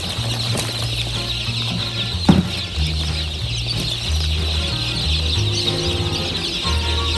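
A dense chorus of many newborn chicks peeping, their high chirps overlapping without a break, with a single thump a little over two seconds in.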